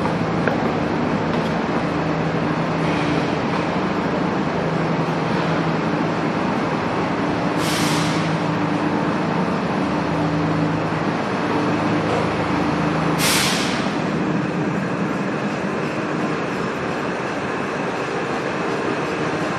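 SEPTA Broad Street Line subway train at a station platform: a steady drone with a low hum that comes and goes, and two short hisses, about eight and thirteen seconds in.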